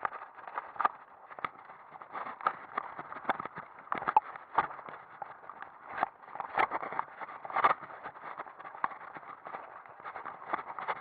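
Mountain bike clattering over a rocky dirt trail: a running, muffled rattle of irregular knocks and clicks, with several louder jolts.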